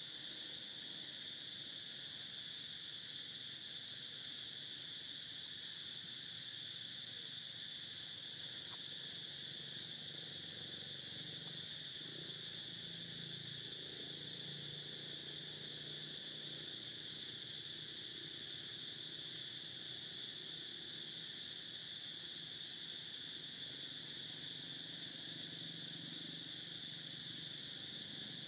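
Steady outdoor insect chorus: a constant high-pitched buzz that holds unchanged throughout.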